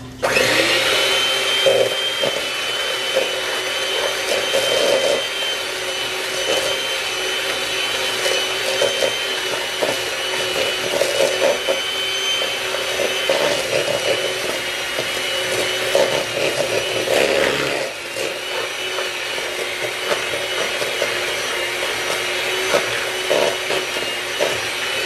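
Electric kitchen mixer running on low speed, mixing ingredients: a steady motor whine that starts abruptly and stops at the very end.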